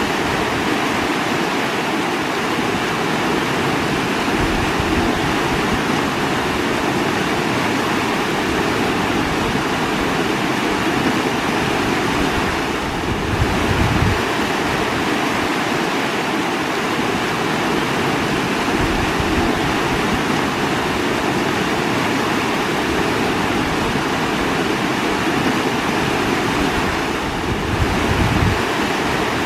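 Running water rushing steadily, with a few brief deeper swells.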